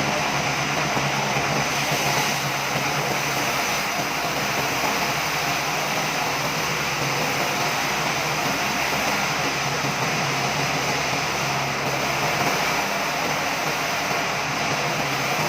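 Sawmill machinery running: a steady, unbroken mechanical drone with a constant low hum.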